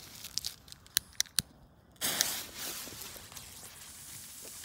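A few sharp clicks, then about two seconds in a loud fizzing hiss starts and slowly dies down to a low steady hiss: a firecracker's lit fuse burning.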